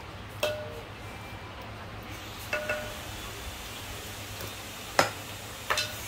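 Metal utensils and bowls clinking now and then: a ringing clink about half a second in, two quick ringing clinks a couple of seconds later, and a loud sharp knock about a second before the end followed by two lighter taps.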